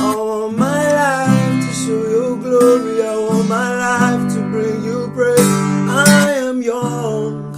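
Worship song: acoustic guitar strumming chords under a sung melody of long held notes that slide between pitches, with no clear lyrics.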